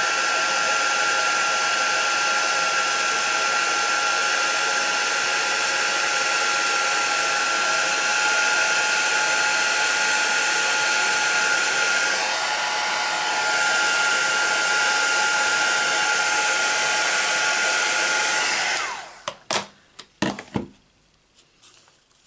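Embossing heat gun blowing steadily with a steady whine over its airflow, melting silver pearl embossing powder on cardstock. It switches off near the end, followed by a few sharp knocks.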